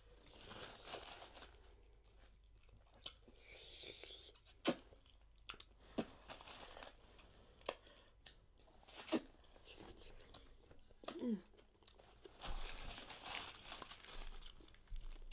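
Close-up mouth sounds of eating saucy seafood boil with the fingers: chewing, wet lip smacks and finger sucking, with several sharp clicks. A short hum comes about eleven seconds in, and a paper napkin rustles near the end.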